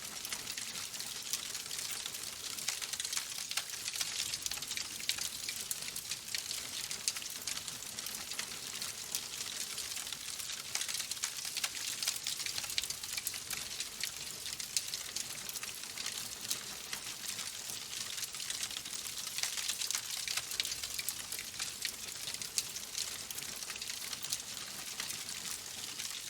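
Wood fire burning in a fireplace, logs crackling steadily: a dense run of small pops and snaps over a soft hiss.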